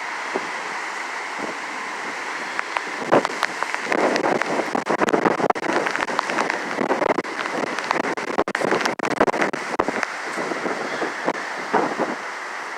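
Hurricane wind and rain, with gusts buffeting the microphone in rapid crackling bursts from about three seconds in until near the end.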